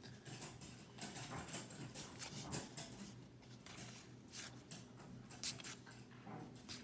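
Faint rustles and light scrapes of Pokémon trading cards being slid and flipped through by hand, in short irregular strokes.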